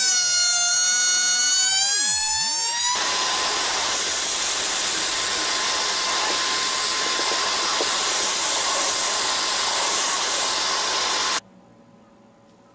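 Compact router motor running at full speed with a high, steady whine, then cutting a groove in wood from about three seconds in, when a loud rushing noise covers the whine. The sound cuts off abruptly near the end.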